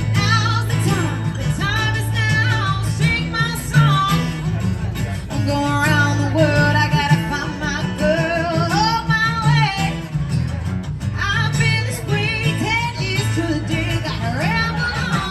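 Live music: a voice singing a melody with wavering held notes over guitar and steady low notes.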